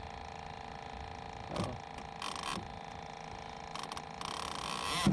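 Fishing reel buzzing in two short spells, about two seconds in and again near the end, as a catfish pulls on the line, over a steady hum.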